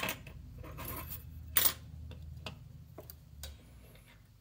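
Scattered small sharp clicks and taps of small hand tools and a circuit board being handled on a workbench, the loudest about one and a half seconds in. A faint low hum stops about three and a half seconds in.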